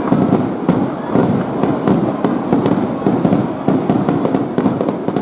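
Aerial firework shells bursting in quick succession: a dense, continuous run of overlapping bangs and sharp crackles.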